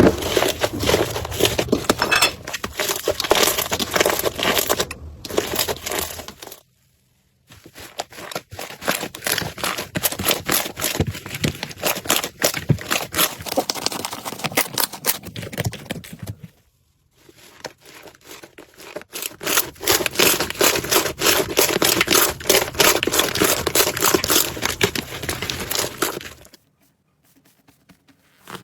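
Slime being squeezed and pressed, a dense stream of crackling, popping clicks. It comes in three stretches with short silent breaks and stops shortly before the end.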